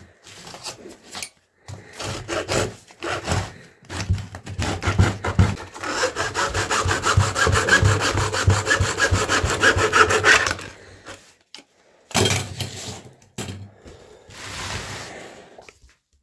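Hacksaw cutting through the plastic case of a Bosch S5 car battery. Uneven strokes at first, then quick, steady back-and-forth strokes for several seconds that stop about ten and a half seconds in, with a couple of shorter bursts near the end.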